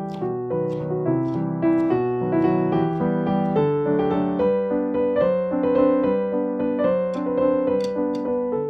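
Piano background music playing a slow melody. Faint knife chops on a plastic cutting board are heard under it, a few in the first couple of seconds.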